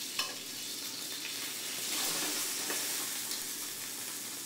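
Chicken breast frying in oil in a stainless steel skillet, a steady sizzle, with a light click just after the start.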